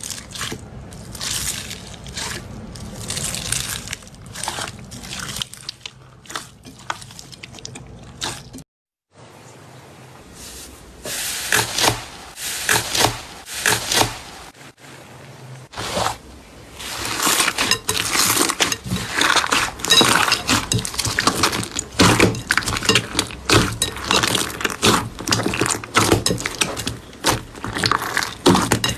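Slime being squeezed and pressed by hand, with dense crackling and crunching, in a run of short clips broken by a moment of silence about nine seconds in. The crackling is thickest and loudest in the second half.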